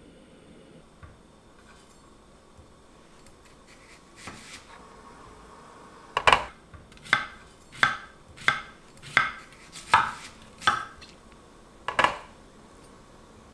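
Kitchen knife slicing an onion on a wooden cutting board: eight sharp chops, about one every 0.7 seconds, starting about six seconds in. Before them there are only a couple of faint knocks.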